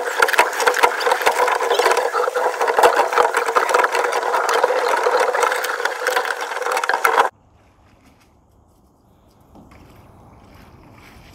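Rattling and clicking from a camera mounted on the bow of a rowing shell moving on the water, over a steady hum. It cuts off sharply about seven seconds in, leaving a faint low rumble.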